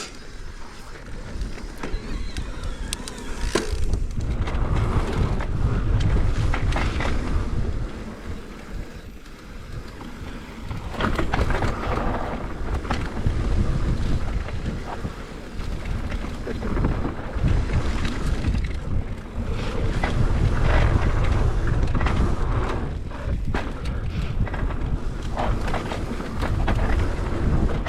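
Wind rushing over the microphone of a mountain biker riding a dirt trail, rising and falling with speed, with scattered knocks and rattles from the bike over the rough ground.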